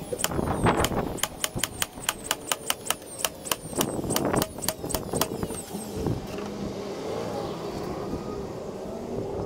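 DeWalt cordless nailer firing nails into plywood in a rapid string of sharp clacks, about four a second. It stops after about five seconds.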